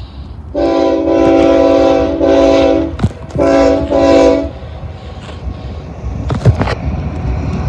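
BNSF diesel freight locomotive sounding its multi-chime air horn in two blasts, a long one of about two and a half seconds and then a shorter one of about a second. After the horn, the rumble of the approaching train's engines and wheels grows louder.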